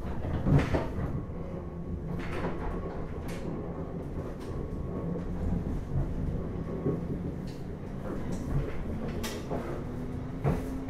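Running sound inside a JR East 485 series electric motor car moving at low speed: a steady low hum from the running gear, with irregular clacks and knocks as it rolls over the track. Near the end a traction-motor whine rises in pitch as the train accelerates.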